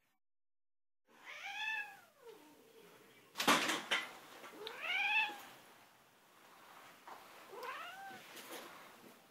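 Domestic cat giving three drawn-out, annoyed meows, each rising and then falling in pitch, the first about a second in. Between the first two meows comes a short, loud burst of noise.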